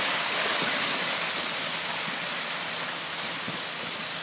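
Loose rock and gravel sliding down a shale cliff face in a rockslide: a steady rushing hiss that slowly fades as the slide tails off.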